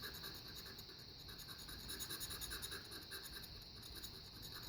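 A knife blade scraping the coating off a scratch-off lottery ticket in quick, even strokes, several a second, faint.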